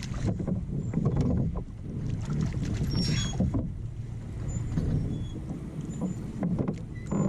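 Choppy water lapping and slapping against a plastic pedal kayak's hull, an uneven low rumble broken by small knocks, with a brief splashy burst about three seconds in.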